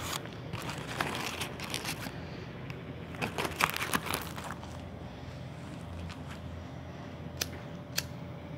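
Rustling and knocking of a phone being handled, then near the end two sharp clicks about half a second apart as a handheld lighter is struck to light a cigarette. A steady low hum runs underneath.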